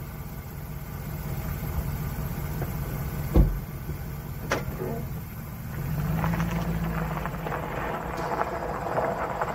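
2011 GMC Yukon's V8 engine idling, with a sharp thump about three and a half seconds in. From about six seconds in the engine note rises and tyres crunch over gravel as the truck pulls away.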